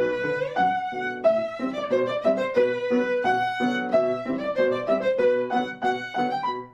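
A short instrumental melody of quick notes with a few longer held ones, dying away at the very end.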